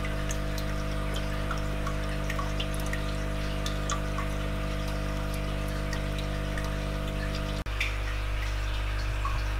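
Water in a turtle tank trickling and dripping in small, irregular drops over a steady low hum.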